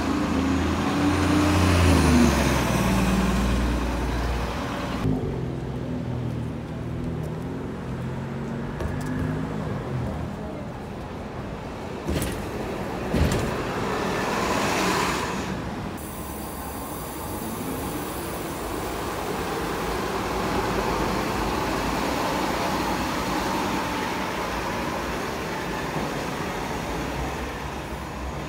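City transit buses' engines pulling away and passing close by, in several short takes. The engine note rises in pitch as a bus accelerates from a stop, and it swells again as another bus goes by, over street traffic.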